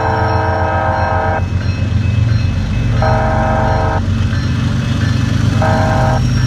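Diesel locomotive's multi-chime air horn sounding in the grade-crossing pattern: a long blast that ends about a second and a half in, a second blast about a second long, then a short one near the end. A steady low rumble of the train runs underneath.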